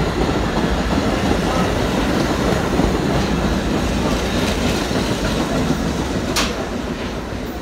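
MTA R68-series subway train pulling out of the station, a steady rumble of wheels on rail that fades slowly as it moves away. There is a short sharp click about six seconds in.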